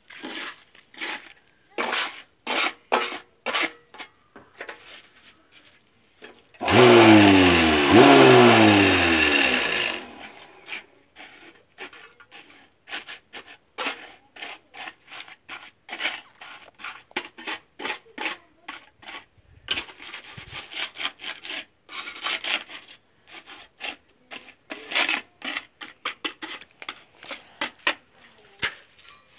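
A steel hand trowel scraping and tamping gritty expanded-clay concrete mix into a steel block mould, in a long run of short scraping strokes. About seven seconds in comes a much louder grating noise lasting about three seconds, falling in pitch twice.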